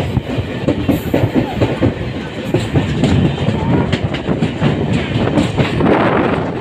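Passenger train running along the line, heard from inside a coach at the window: a steady rumble with a dense, irregular clatter of wheels on the rails.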